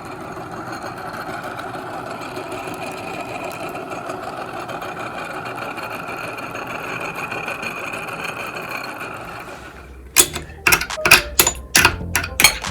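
Electric meat grinder's motor running steadily with a whine, which cuts off about ten seconds in. A quick series of sharp clicks and clinks follows.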